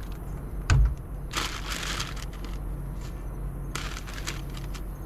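Plastic salad bag crinkling in two bursts as mixed leaves are shaken out of it, with a dull low thump, the loudest sound, just under a second in.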